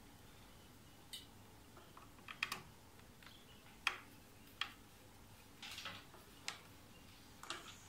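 Small irregular clicks and taps of a screwdriver and wire ends being worked into the screw terminals of a garage door opener's plastic controller board.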